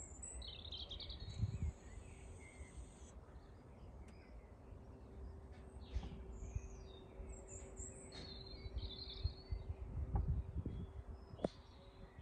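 Birds chirping in short high phrases, with a thin high trill lasting a couple of seconds near the start. Underneath are an irregular low rumble and a faint steady hum.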